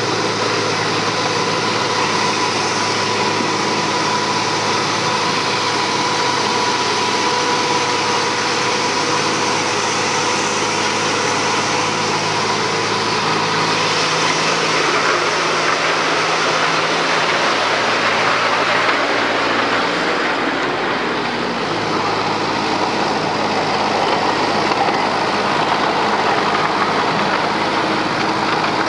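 Engine of a 7¼-inch gauge GP40 miniature locomotive running steadily as it hauls the train, mixed with the noise of the train running along the track. The noise gets louder while passing through a short tunnel about halfway through. The engine note drops briefly about two-thirds of the way in, then picks up again.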